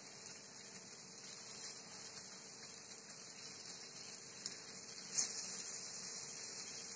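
Faint steady sizzle of paneer tikka skewers cooking on a hot iron tawa, with a few light clicks and one short sharp burst about five seconds in as oil is sprayed over them from a pump spray bottle.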